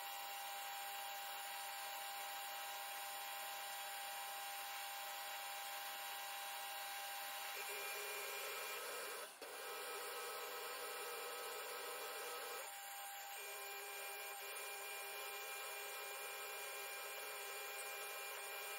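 Metal lathe running and taking a turning cut on a metal spindle blank, a steady machine whirr with a few steady tones. Its tone changes for a few seconds in the middle, with a brief break about nine seconds in.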